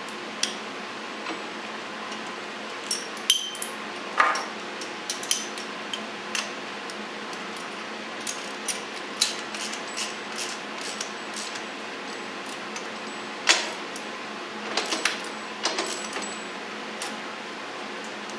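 Irregular metallic clinks and clicks of hand tools and stainless steel bolts being handled while rubber pads are bolted onto a backhoe's steel stabilizer shoe, over a steady background hum.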